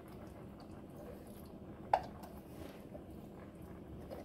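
Canned chili beans being scraped out of the tin with a spatula and dropping into a pot of chili: faint, wet squishing, with a single sharp tap about two seconds in.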